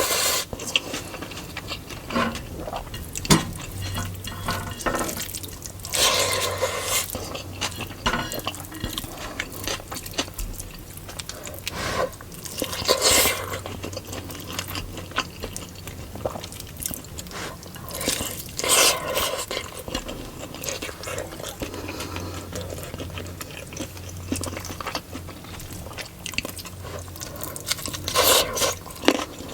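Close-miked eating of chicken biryani with raita: wet chewing and mouth sounds with scattered short clicks and smacks, over a faint low steady hum.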